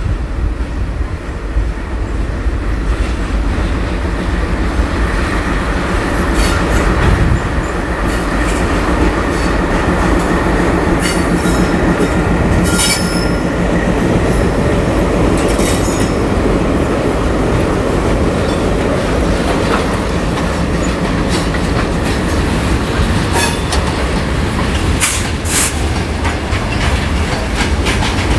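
Twin WDM3D ALCO diesel-electric locomotives hauling a freight train past at close range. The engine rumble is steady under the clatter of wagon wheels over the rails, with short high wheel screeches and clicks coming and going, most often in the middle and near the end.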